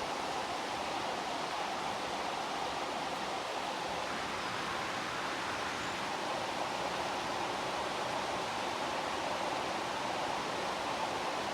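Heavy rain falling in a steady, even hiss with no thunder or breaks.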